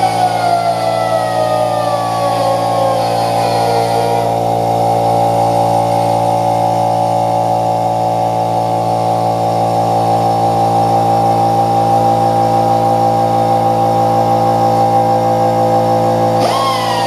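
A small power tool motor runs steadily while buffing rough spots smooth on a damaged chainsaw chain. A whine falls in pitch over the first few seconds and stops, then jumps up again near the end.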